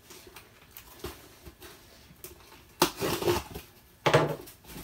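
Cardboard shipping box being opened and handled: light scratching and tapping, then two louder rustling, crinkling bursts of cardboard and packing, about three and four seconds in.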